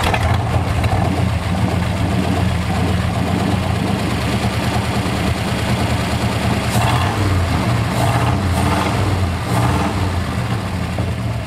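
Ford Y-block V8 of a 1964 F250 idling steadily with its choke butterflies closed, while its two-barrel carburetor is set to bring the idle down.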